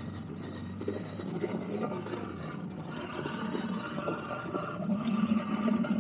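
Husqvarna Norden 901's parallel-twin engine running at low speed on a dirt track. It gets a little louder toward the end.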